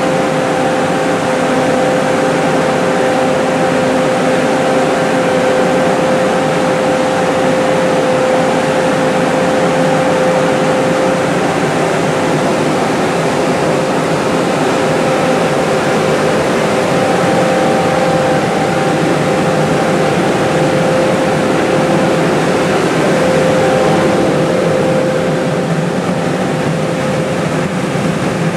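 Air-O-Fan GB-36R airblast vineyard sprayer running, its PTO-driven steel axial-flow fan blowing air and spray into the vines. It makes a loud, steady rush of air with a constant whine.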